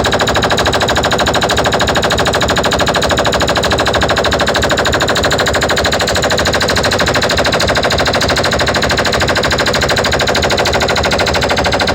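A DJ sound system playing a loud sound-check effect: a fast, even, rattling electronic pulse with held tones over deep bass.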